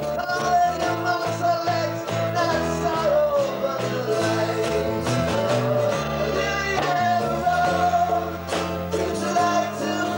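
Two acoustic guitars strumming chords in an upbeat song, with a man singing the lead vocal.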